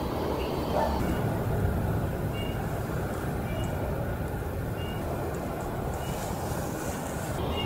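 Steady low rumble of distant road traffic, with faint short high bird calls about once a second.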